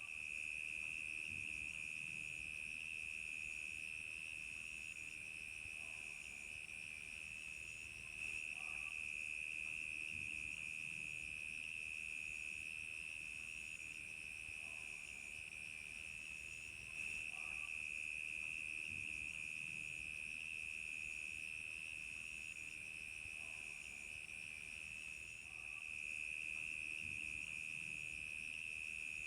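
Chorus of crickets chirping in a steady continuous trill, with a higher, fainter pulsing chirp repeating about once a second.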